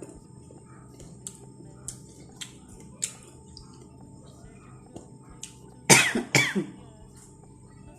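A woman chewing, with a few small mouth clicks and smacks, then coughing twice, loudly, about six seconds in, after a bite of mango with chili-spiced bagoong she has called spicy.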